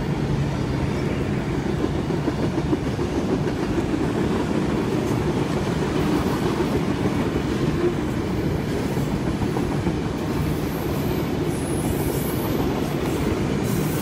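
Freight train of enclosed autorack cars rolling past close by: a steady, low noise of steel wheels running on the rails.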